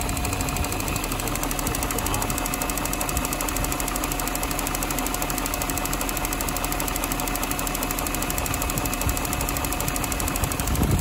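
BMW 740i E38's 4.4-litre V8 idling steadily while warming up after a cold start.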